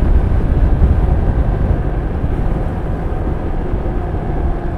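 Motorcycle on the move: engine and road noise in a steady low rumble, with a faint steady tone coming in near the end.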